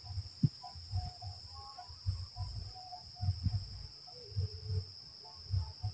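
Steady high-pitched insect chorus, with gusts of wind buffeting the microphone in low, irregular rumbles every second or so.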